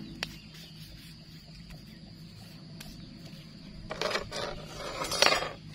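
Two short bursts of rustling, about four and five seconds in, the second louder, as fresh corn husks are handled.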